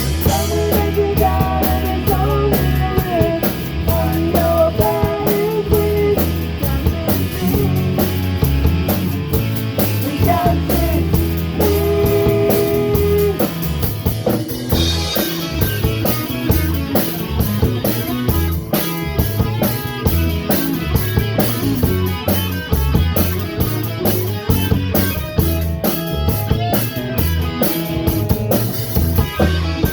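Rock music: electric guitars playing melodic lines over a steady drum kit and bass.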